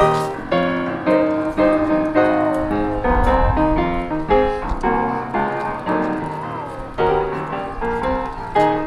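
Background film-score music led by piano: quick, lilting notes over held tones, with a few short sliding notes.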